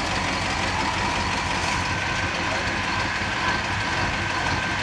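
A crane's engine running steadily while hoisting, a heavy rumble with a faint steady high whine over it.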